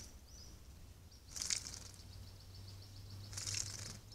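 Masked water-tyrant bathing in a stone birdbath, beating its wings in the water: two short bursts of splashing about two seconds apart.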